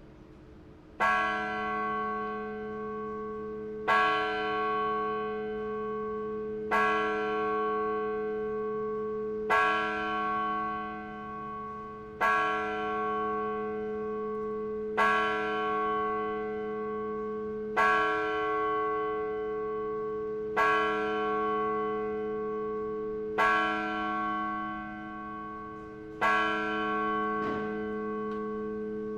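A single tower bell tolling: ten strokes at the same pitch, one about every three seconds, each ringing on into the next.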